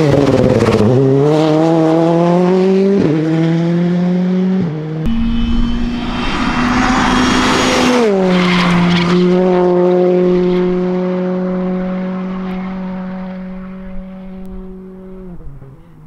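Citroën C3 Rally2 rally car's 1.6-litre turbocharged four-cylinder engine at speed. Its pitch falls sharply as it passes, then climbs through quick upshifts with brief cuts at each gear change. The pitch falls sharply again about eight seconds in, and the engine then holds a steady note that fades as the car moves away.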